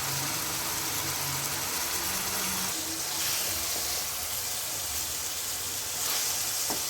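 Chopped onions sizzling as they fry in hot oil in a pan, a steady hiss that swells about three seconds in and again near the end.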